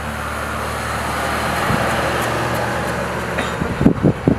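Jeep Gladiator Mojave pickup driving past at road speed: engine and tyre noise swell to a peak about two seconds in, then fall away. Near the end come irregular low thumps.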